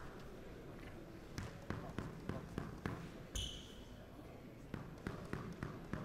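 A run of sharp knocks on a squash court, several a second, and about three and a half seconds in a thump with a short bright chime, the sound effect of a broadcast transition graphic.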